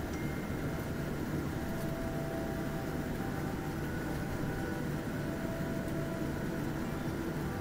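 Steady airliner cabin noise on the ground after landing: jet engines at idle and air-conditioning hiss, with faint steady whining tones.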